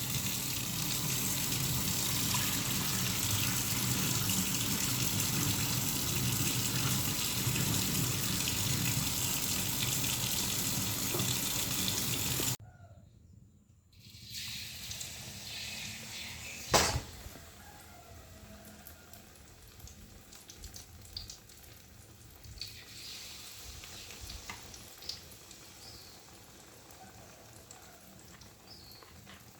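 Water poured steadily into a pot for cooking rice, a loud even rush that stops abruptly about twelve seconds in. After a short pause comes a single sharp knock, then faint small clicks.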